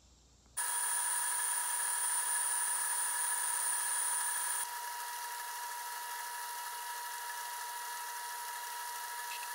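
Metal lathe boring out a ring-shaped workpiece: a steady, high-pitched machine whine that starts about half a second in. A little under halfway it drops in level and its highest tone cuts out, the whine carrying on steadily after that.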